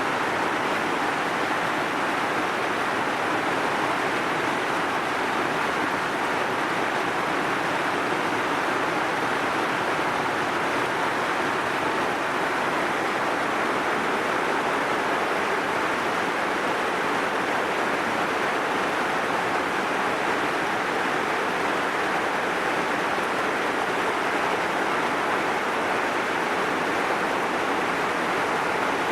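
Heavy rain falling steadily, an even hiss with no breaks or changes.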